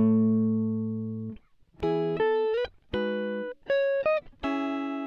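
Background music: plucked guitar-like notes and chords, each one starting sharply and fading away, with short breaks between phrases.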